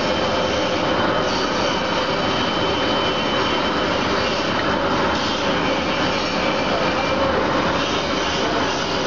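ZXJ-380 automatic pillow filling machine running: the fans that blow polyester fiber through its pipes make a steady, loud rushing whir with a faint steady hum.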